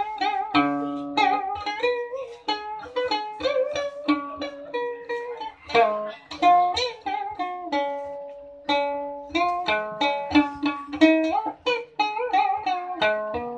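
Solo đàn kìm (Vietnamese moon lute) playing a melody of plucked notes, many of them bent or wavering in pitch, with a few held notes in between.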